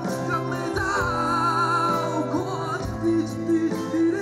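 A man singing long held notes with a wavering vibrato, backed by a live band.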